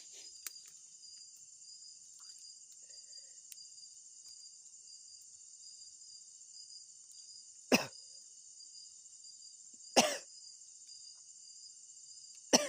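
A man coughing: three single sharp coughs, the first about halfway through and the others about two and a half seconds apart.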